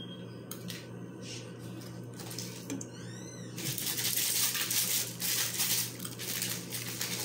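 Candy sprinkles rattling inside a plastic shaker container as it is shaken over a frosted cake: a few light clicks at first, then a dense, steady rattle from about halfway through.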